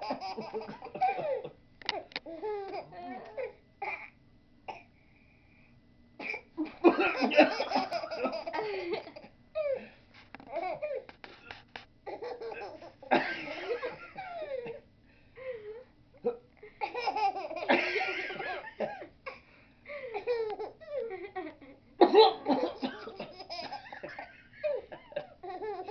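A nine-month-old baby laughing in repeated bouts, with coughs among the laughter.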